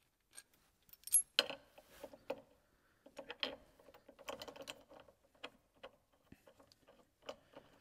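Steel chain links and a clevis clinking and rattling as the clevis is fitted to a track-limiting chain: irregular metal clicks and light clanks, a few ringing briefly.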